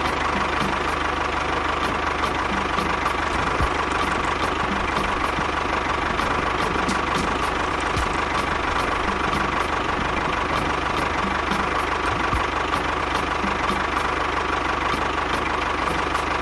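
A motor running steadily at a constant speed, a continuous hum with faint, evenly spaced light clicks.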